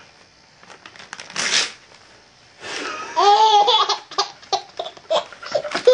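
Paper being torn briefly, about a second and a half in, then a baby laughing in short, repeated bursts from about three seconds in.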